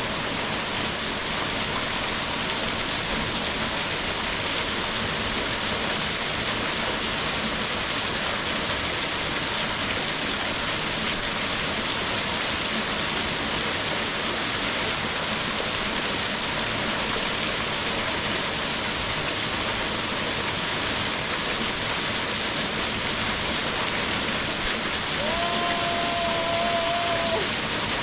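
Small waterfall pouring steadily into a pool, a constant rushing noise with no breaks. Near the end a short pitched tone sounds for about two seconds.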